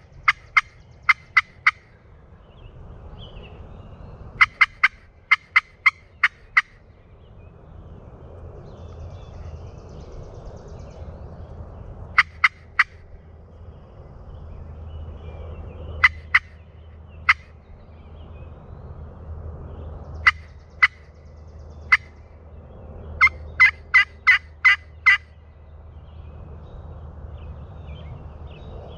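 Turkey yelps from a hunter's turkey call: loud runs of sharp, evenly spaced notes, mostly five to eight at a time, with a few single notes in between and a last run of about six notes near the end.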